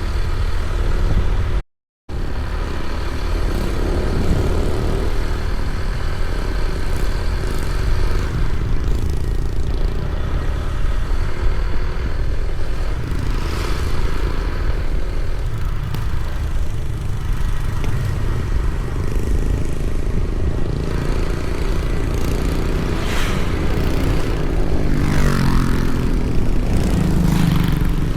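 A road vehicle on the move, a steady, heavy rumble of engine and road noise. The sound cuts out completely for a moment about two seconds in.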